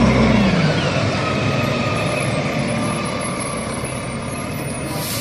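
Rear-loader garbage truck's engine running as the truck moves along the street. The engine note drops in pitch about half a second in, with a faint high whine over it.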